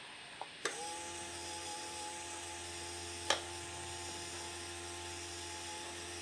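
Model railway turntable's replacement motor and gearbox starting with a click about half a second in, then running with a quiet, steady whine and hum. A single sharp click about three seconds in.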